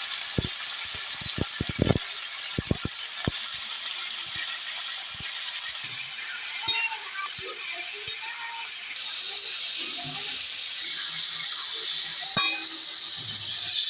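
Chicken frying in a pan with a steady sizzle. Several sharp knocks against the pan come in the first few seconds, and a few more near the end.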